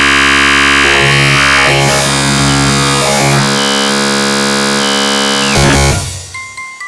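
MIDI synthesizer ringtone music: a loud, dense sustained synth chord with a noisy edge, held for about six seconds, then breaking off into quieter quick, short repeated notes near the end.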